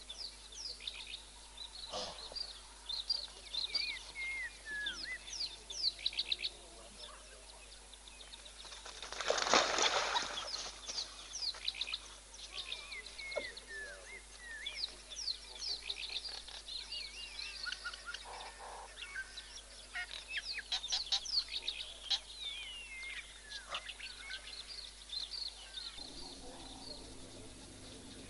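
Many high chirping and twittering calls, some quick rising and falling whistles, go on all through, with one loud rushing burst lasting about a second and a half about nine seconds in.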